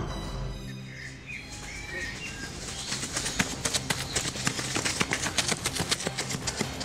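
Quick, irregular running footsteps slapping on a paved path start about two and a half seconds in. A few bird chirps come just before them, and music plays underneath.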